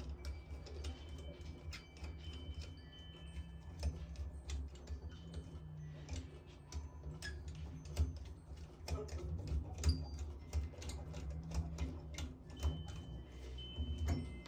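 Flathead screwdriver working on a shower faucet handle: many small, irregular metallic clicks and ticks over a low steady hum.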